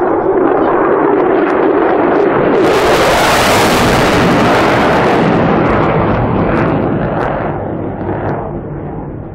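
Military fighter jet passing overhead on afterburner, loud. The engine noise is at its loudest and brightest about three seconds in, then fades as the jet climbs away.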